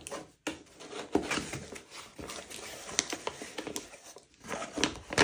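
Cardboard box being opened by hand: packing tape slit with a pointed tool, then the flaps pulled open, in irregular scrapes, scratches and small clicks.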